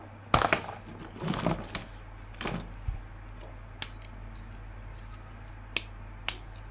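Plastic action figure and its packaging being handled: irregular sharp plastic clicks and short rustles, several close together in the first three seconds, then a few sparser clicks.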